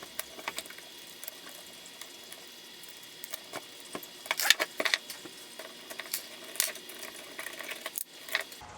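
Small metal parts and hand tools clicking and rattling irregularly as lock nuts are run onto screws and tightened by hand, over a faint steady high hum.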